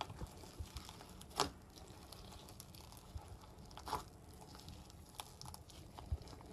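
Slime being squished and pulled by hand, with faint sticky crackles and two sharper pops, about a second and a half in and about four seconds in.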